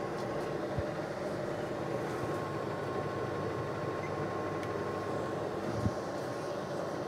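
Sharp R23AM 1900-watt commercial microwave oven running a short heating cycle with a jug of water inside: a steady whir of its fans with a faint hum, showing it working on a test run after being shut down by overheating. There is a single soft thump about six seconds in.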